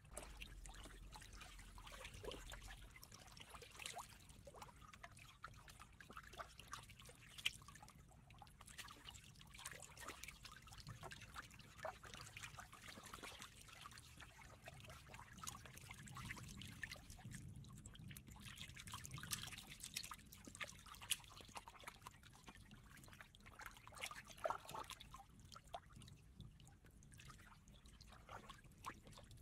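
Faint water trickling and dripping, with many small irregular splashes and clicks.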